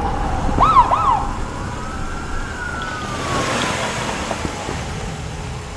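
Police siren sounding: a falling wail, then two quick up-and-down yelps, then a slow wail that rises and falls away.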